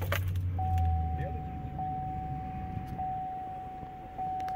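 A GM truck's engine starting inside the cab: a click, then a low rumble that is loudest for about the first second and a half before easing to idle. Over it the dashboard warning chime sounds a steady tone that restarts about every 1.2 seconds.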